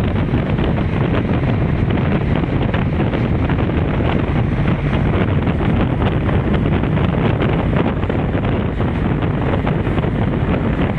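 Steady, loud rushing of water running high after heavy rain, a continuous dense noise with no breaks.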